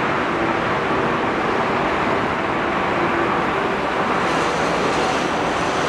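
Jet engines of a four-engine Airbus A380 (Rolls-Royce Trent 900s) at takeoff thrust, a loud, steady rush of noise as the airliner lifts off, its high hiss growing a little about four seconds in.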